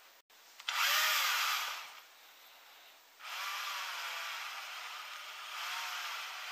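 Cordless screwdriver's motor spinning a drill bit in the air with no load. A loud burst comes about a second in and winds down, then from about three seconds in it runs steadily, its pitch rising and falling a little.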